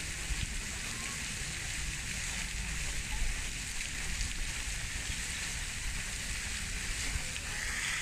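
Steady outdoor hiss with a low, fluttering rumble of wind on the microphone and a few faint ticks; no distinct bird calls. The hiss swells briefly near the end.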